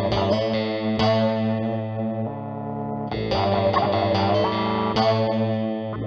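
Guitar played through effects, sounding sustained chords and notes that change every second or two over a steady low note, with a short upward bend a little past the middle.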